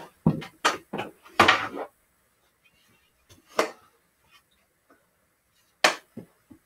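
Hockey stick hitting a small hard ball in a series of sharp clacks and knocks: several in quick succession in the first two seconds, one more midway, and three close together near the end.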